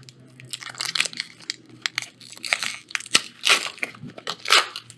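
Foil wrapper of a Magic: The Gathering draft booster pack being torn open and crinkled by hand, in irregular crackling rustles with a few louder crinkles near the end.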